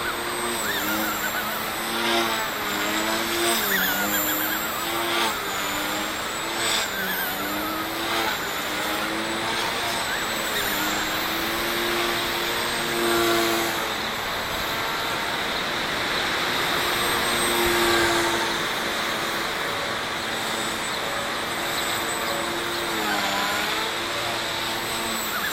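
XK K130 electric RC helicopter in flight, running on a 3D-printed main gear: a steady rotor buzz and motor whine whose pitch keeps rising and falling as the throttle changes.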